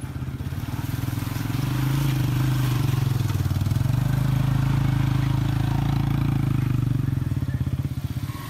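A vehicle's engine running steadily under way with a regular low firing pulse, building up over the first couple of seconds and easing off near the end.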